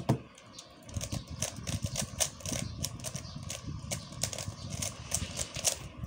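A 3x3 speedcube being turned rapidly by hand: a fast, irregular run of plastic clicks and clacks from about a second in, after a single thump at the very start.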